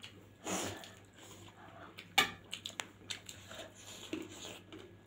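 Eating rice and lentil soup by hand from steel plates: wet chewing and the squish of fingers mixing rice on the plate. A few sharp clicks, the loudest about two seconds in.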